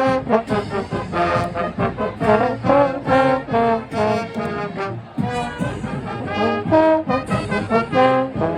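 Full marching band playing, led by loud trombones and trumpets in punchy, rhythmic chords.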